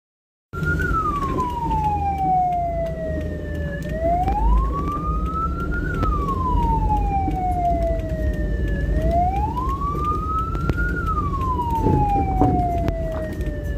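Ambulance siren wailing: a single tone that falls slowly and rises again, one cycle about every five seconds, over a steady low rumble.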